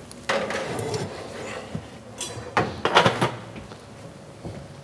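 Kitchen cookware and cupboard handling: a clatter as cookware is fetched from a low cabinet, then a few sharp knocks of pots or pans set down, about three seconds in.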